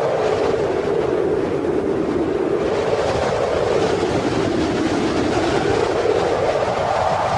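Wind blowing steadily, a band of whistling noise that slowly sinks in pitch and rises again near the end.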